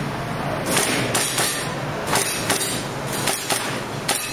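Gas blowback M4 airsoft rifle firing single shots, about eight sharp reports at uneven intervals, some in quick pairs.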